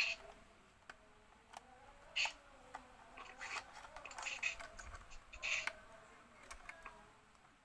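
Scattered clicks and short scratchy rubs from a plastic toy train being turned over and handled, its plastic wheels and rods knocking and scraping.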